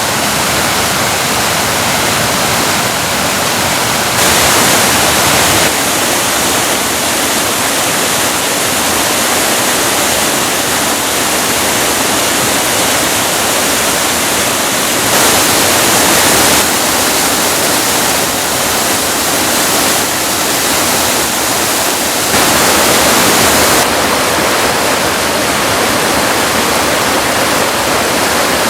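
Mountain river rushing, a steady dense hiss of running water. Three times, about four, fifteen and twenty-two seconds in, it turns louder and brighter for a second or two.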